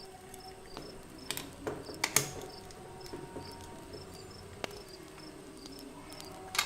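Cricket chirping steadily, about three short high chirps a second, under a few sharp clicks and knocks, the loudest about two seconds in and near the end.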